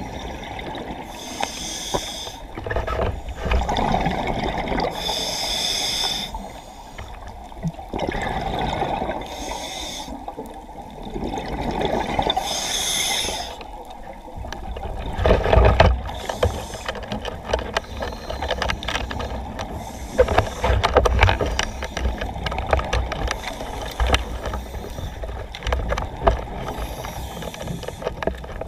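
Underwater sound of a diver breathing, with bursts of exhaled bubbles every few seconds over a steady low rumble.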